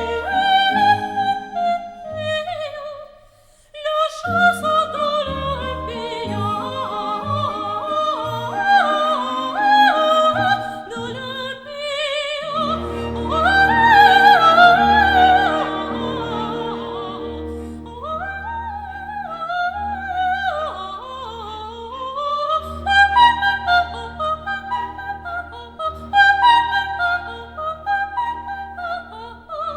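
A singer in operatic style with instrumental accompaniment. The melody stops briefly about three and a half seconds in, and held low bass notes come in under the voice about twelve seconds in.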